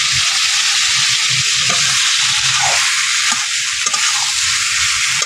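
Oily spice paste sizzling steadily in a metal kadai while a flat metal spatula stirs fried potato pieces and elephant-foot yam stalks through it, with a few light scrapes of the spatula against the pan.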